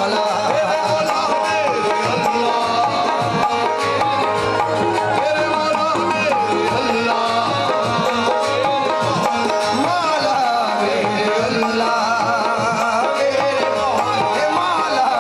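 Live qawwali music: a male voice singing wavering, ornamented lines over a steady tabla rhythm.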